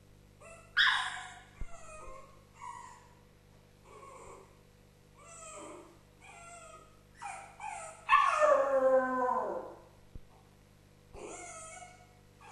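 West Highland white terrier whining and howling while left home alone: a string of short high whimpers and yips, with a loud call about a second in and a longer howl falling in pitch about eight seconds in.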